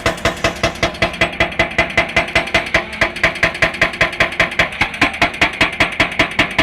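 Excavator's hydraulic rock breaker hammering hard rock in rapid, even blows, about five or six a second, over the excavator's engine running.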